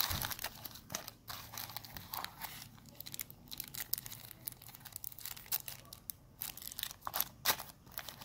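Clear plastic packaging bags crinkling as small bagged parts are picked up and handled, in irregular rustles and crackles.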